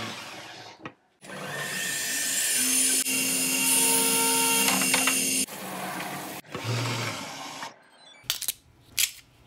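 Optical lens edging machine grinding an eyeglass lens to shape under water spray: its motor spins up with a rising whine, then runs with a steady hum and grinding noise. It drops off about five and a half seconds in and stops near eight seconds, followed by a few sharp clicks.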